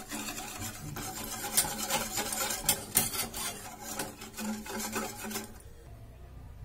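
Wire whisk scraping and clicking against a stainless steel saucepan, beating milk into a flour mixture for a white sauce. The whisking stops about five and a half seconds in.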